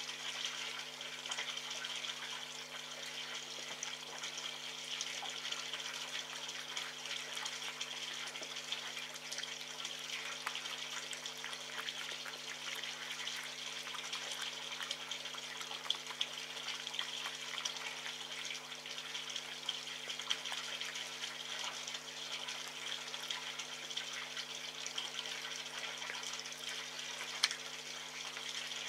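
Red fox eating meat from a metal tray: scattered small wet chewing clicks and smacks, with a few sharper ticks, over a steady hiss and a low hum.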